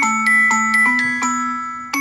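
A Samsung Galaxy Note10+ ringtone melody played back as synthesized notes in a bell-like mallet tone, with a new struck note about four times a second over sustained chords.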